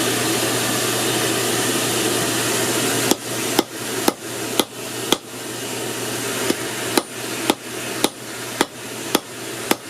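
Hammer blows on hot steel over a hot cut, cutting 1/4 inch steel bar, about two sharp strikes a second starting about three seconds in, with a short pause midway. A steady rush of air from the forge blower runs underneath.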